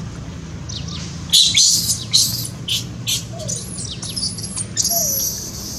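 Baby monkey squealing and screaming in distress: a string of short, high-pitched cries, then one longer shrill scream near the end.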